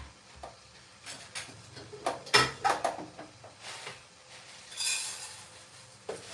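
Knocks and clinks of a plastic container and a metal teapot being handled at a kitchen counter and sink, the loudest knock about two and a half seconds in. About five seconds in comes a short pouring hiss as the container's contents are tipped into the teapot.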